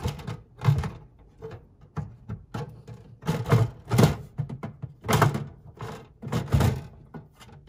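Irregular knocks and thunks from hands working a part into place inside a slot machine's metal cabinet, about eight to ten of them.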